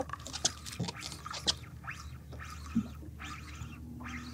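Water lapping and gurgling against the hull of a small boat, with scattered light clicks and knocks.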